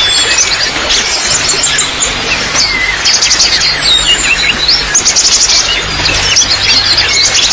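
Small songbirds chirping, with rapid trills and short falling whistles, over a steady trickle of running water.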